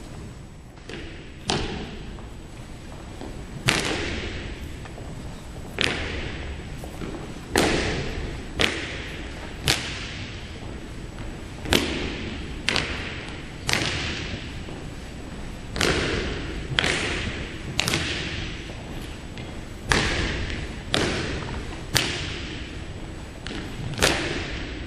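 Drill boots stamping in unison on a hard gym floor: a series of sharp stamps, roughly one every one to two seconds, each echoing in the hall, as a squad of cadets marches, halts and turns.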